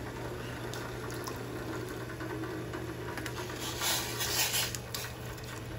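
Soaked rice tipped from a steel bowl into a steel pot of water, splashing in for about a second and a half a few seconds in, over a steady low hum.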